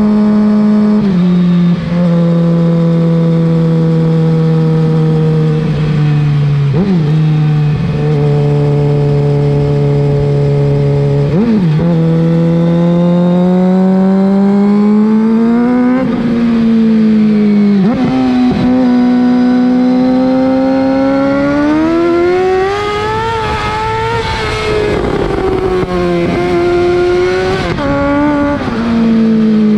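2007 Suzuki GSX-R 750 inline-four engine running through a Yoshimura R55 slip-on exhaust, heard right at the muffler while riding. It is mostly steady cruising, broken by a few short rev changes at shifts and throttle blips. About three quarters of the way through it pulls hard with the revs climbing, then the revs fall back.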